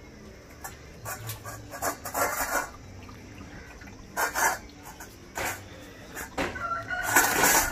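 Two German shepherd puppies eating wet rice and mutton gravy from bowls: irregular smacking, lapping and chewing sounds, with the food bowls knocking and sliding on a tiled floor. Near the end the eating sounds come thicker, and a short thin squeak is heard.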